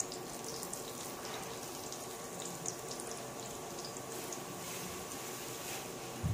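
Hot oil sizzling steadily in a pan of fried onions, with whole spices and fennel seeds just added, and scattered light crackles.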